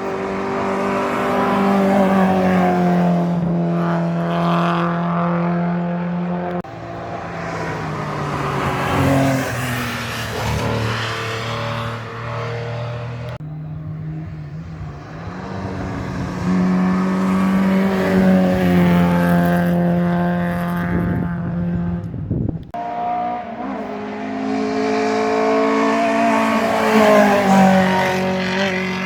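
Historic racing cars passing one after another at full throttle, each engine's note stepping down in pitch at the gear changes, with a sudden break about 22 seconds in before the next car arrives.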